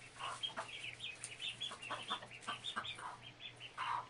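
Baby chicks peeping in many short, high, quickly repeated calls, with their mother hen clucking among them, one louder cluck near the end.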